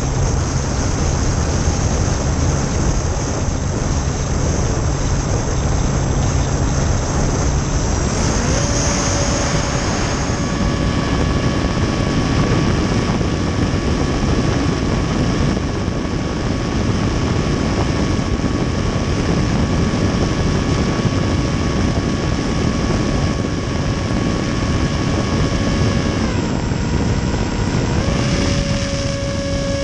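Hobbyzone Aeroscout S RC plane's electric motor and propeller in flight, heard from a GoPro strapped to the plane, with heavy wind rush. A steady whine comes in about a third of the way through and holds its pitch. Near the end it drops in pitch for a couple of seconds, then rises again.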